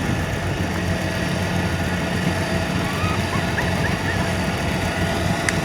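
Kubota DC-70 combine harvester's diesel engine running steadily under harvesting load, a continuous low drone.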